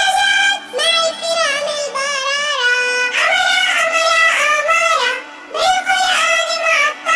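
A young girl singing an Arabic children's song in a high voice. Her sustained notes waver with vibrato, and there is a short breath pause between phrases about five seconds in.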